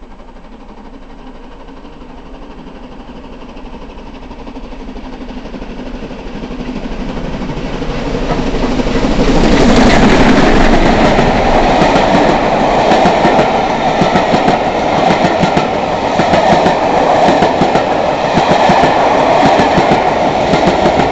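LMS Coronation class Pacific steam locomotive 46223 Duchess of Sutherland approaching at speed, growing steadily louder, and passing about ten seconds in. Its train of coaches then rolls by, with rapid clicking and clattering from the wheels on the track.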